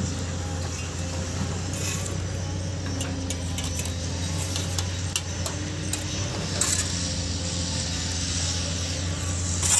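Building-site noise: a steady low machine hum with scattered metallic clinks and taps, such as trowels knocking on concrete blocks, and one sharper knock near the end.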